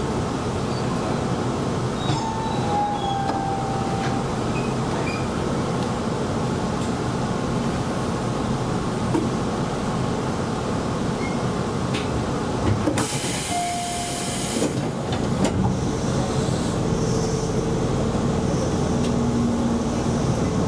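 Electric commuter train running along the track, heard from the front of the car as a steady rumble of wheels on rails. Brief falling squeals come about two to four seconds in, and a burst of hiss lasts about a second and a half near the middle.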